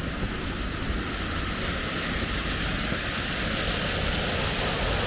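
Steady rush of water from a waterfall, an even roar that grows a little louder over the last few seconds.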